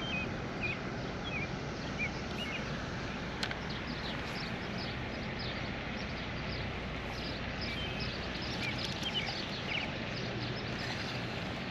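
Outdoor ambience by the water: a steady background hiss with small birds chirping briefly and repeatedly throughout, and one faint click about three and a half seconds in.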